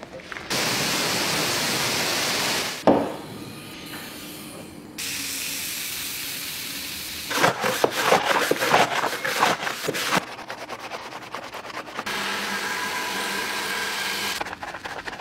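A string of car-detailing sounds: steady spraying hiss, a quick run of scrubbing strokes as foam is worked over a plastic engine cover, then a steady hiss of water from a rinse nozzle over a foamed engine bay near the end.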